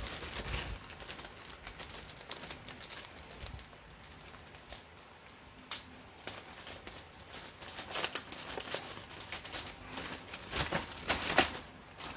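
Clear plastic bag of jigsaw puzzle pieces crinkling as it is handled and pulled open. There is one sharp click about halfway through, and louder bursts of crinkling near the end.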